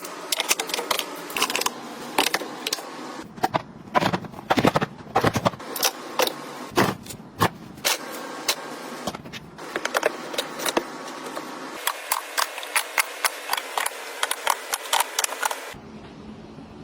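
Many quick clicks, taps and light clatter of small hard items being handled and set down. The background changes abruptly twice, and near the end the clicking stops, leaving a low steady hum.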